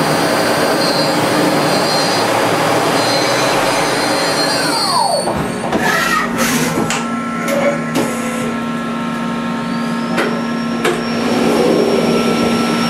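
Mori Seiki NL2500SY CNC lathe running: a loud steady hiss with high whines, then about five seconds in the spindle winds down with a falling whine. After that a steady hum remains, with several clunks and clicks as the tool turret indexes and swings away from the part.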